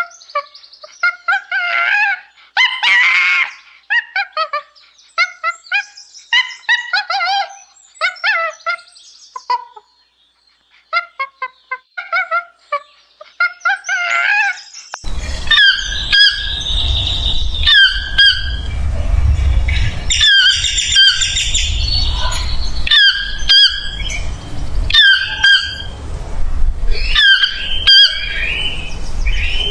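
Birds calling: a quick run of short chirping calls, then from about halfway a change to repeated sharp calls roughly once a second over a steady low rumble.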